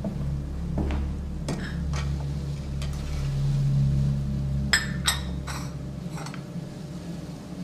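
Crockery and cutlery clinking and knocking several times, loudest as a quick pair about two-thirds of the way through, over a low steady drone.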